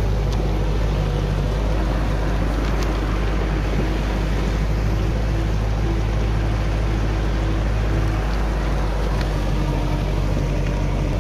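Kubota tractor's diesel engine running at a steady pace while pulling a loaded trailer, heard from the trailer behind it.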